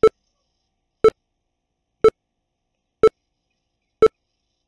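NVDA screen reader's short progress beeps, one steady tone repeated about once a second (five beeps), signalling that the installation is still in progress.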